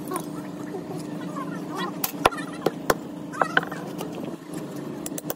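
Several sharp metallic clinks and taps, between about two and four seconds in, as a screwdriver and hammer work at stacked steel plates from a hydraulic jack. A steady low hum runs underneath.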